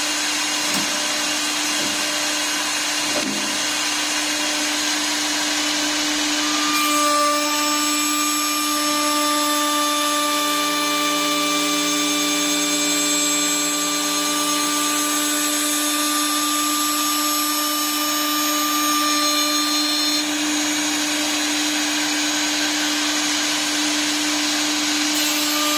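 CNC wood lathe's router spindle running with a steady high whine. More high tones join about seven seconds in, and the mix shifts again about twenty seconds in.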